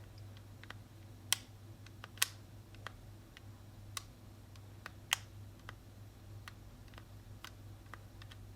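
Small, irregular clicks and taps of hard plastic being handled and worked apart as a PS5 DualSense controller is disassembled, a few sharper clicks standing out, over a low steady hum.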